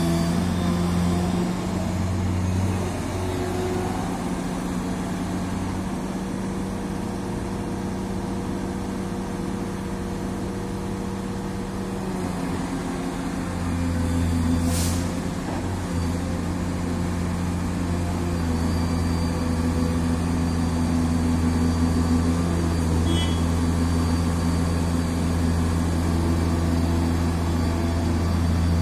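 Liebherr R 944 crawler excavator's diesel engine running steadily while the machine works, its low engine note growing stronger about halfway through as load comes on. A short hiss sounds near the middle.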